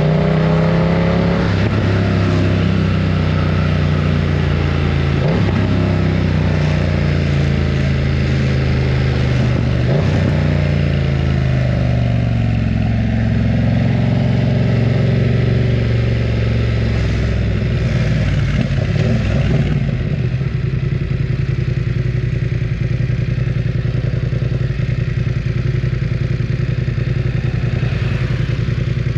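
BMW F900 R's 895 cc parallel-twin engine running loud under way. The note rises at the start and breaks briefly about 5 and 10 seconds in. It then settles into a steadier, lower run over the last third.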